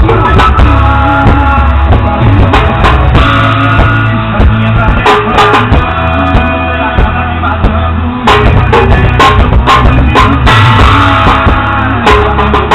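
An old drum kit played with two thin wooden skewers in place of drumsticks, along to a rock song with guitar and singing; frequent sharp drum and cymbal strikes cut through the steady music.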